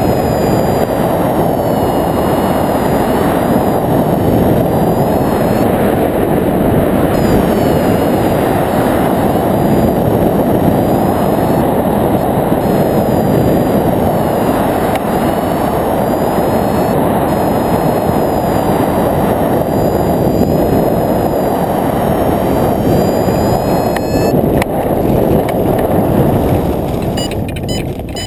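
Wind rushing over a camera microphone mounted on a hang glider's control bar in flight, a loud steady rumble. Near the end it drops away as the glider slows to land, with a few sharp clicks.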